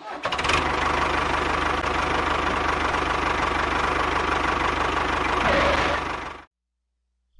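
A heavy engine sound effect dubbed over the toy truck: an engine running steadily with a rhythmic knock, cutting off abruptly about six and a half seconds in.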